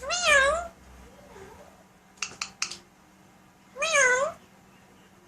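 Alexandrine parakeet mimicking a cat's meow: two loud meow-like calls with a wavering pitch, one at the start and one about four seconds in. A few short sharp clicks come in between.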